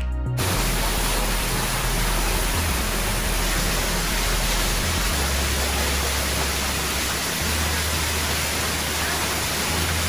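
Steady rush of a waterfall cascading down a rock face, starting abruptly about half a second in. Low notes of background music sound beneath it.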